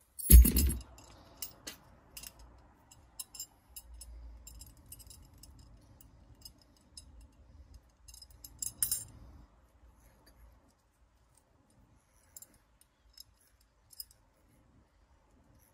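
A sharp thump about half a second in, then small metallic clicks and clinks from a metal belt buckle being handled, with a louder clattering rattle near nine seconds.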